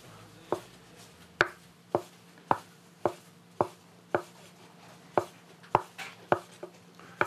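Large kitchen knife cutting folded, floured noodle dough into strips on a wooden board. The blade knocks the board in a steady rhythm, roughly two strokes a second, about a dozen cuts in all.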